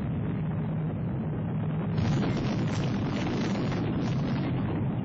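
Sound effect of a volcano erupting: a continuous low rumble, with crackling noise joining in about two seconds in.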